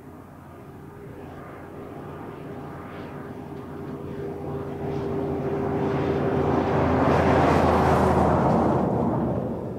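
Diesel semi-trailer truck hauling a loaded car-carrier trailer at highway speed. It approaches and passes by, its steady engine note and tyre noise growing louder to a peak about three-quarters of the way in, then falling away quickly as it goes past.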